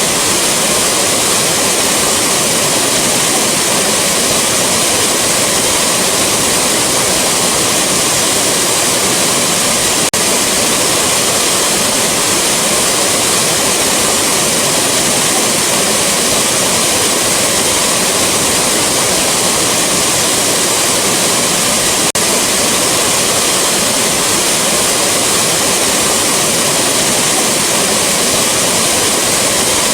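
Waterfall rushing: a steady, dense hiss of falling water with no breaks.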